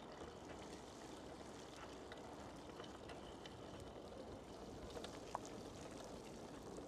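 Faint, steady outdoor background noise with a few small clicks and one sharper tick a little past halfway through.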